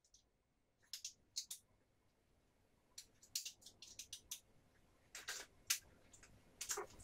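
Faint, short scratchy swishes and clicks, about a dozen, from a makeup brush working eyeshadow onto the eyelid and being handled against a cardboard eyeshadow palette. They come closer together in the second half.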